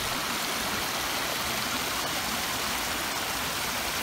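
Muddy storm runoff rushing steadily through a roadside drainage ditch that is overflowing onto the grass.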